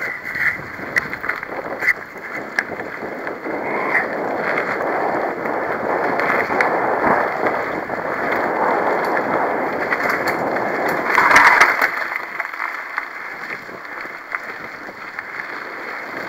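Riding noise of a mountain bike on a dirt forest singletrack: a steady rush of wind on the microphone and tyres rolling over dirt, with scattered clicks and rattles over bumps, swelling to a louder rush about two-thirds of the way through.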